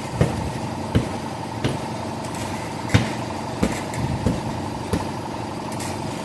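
A steady air-compressor hum under about seven sharp thuds, less than a second apart, from a hammer striking a tubeless rear tire to help seat a bead that is leaking air.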